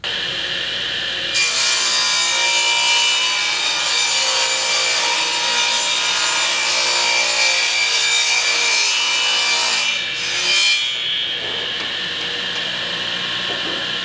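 A Ridgid R4512 10-inch table saw switches on and runs with a steady motor whine. About a second in, the blade starts ripping a plywood panel, and the loud cutting noise lasts for about eight seconds. The saw then keeps spinning freely once the board is through.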